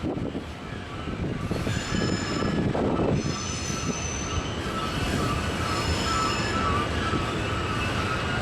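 Loaded coal hopper train rolling past on a sharp curve: a steady rumble of wheels on rail, with wheel flanges squealing in high, wavering tones that come and go several times.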